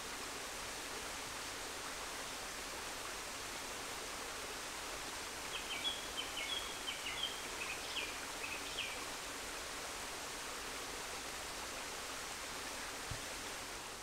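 Steady rushing of a stream and small waterfalls, with a short run of high chirps, like a bird calling, about halfway through.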